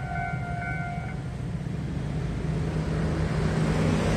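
Railway level-crossing warning signal sounding a steady multi-pitch tone that stops about a second in, as the crossing clears. Motor scooters and cars then start moving, their engines and tyres rising into a steady hum.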